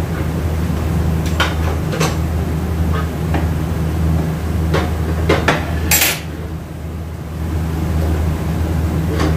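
Metal transmission parts and hand tools clinking and tapping in a scatter of short knocks, the sharpest a brief bright clatter about six seconds in, over a steady low machine hum.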